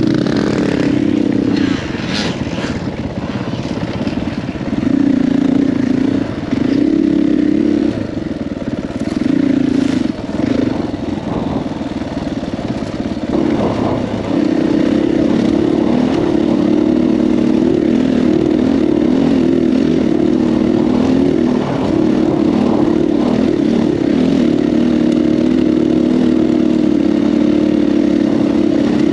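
KTM 500 EXC-F's single-cylinder four-stroke engine under way on trail. The throttle is opened and closed in short bursts through the first half, then held at a steady pitch for the second half. A few sharp clacks come in the first third.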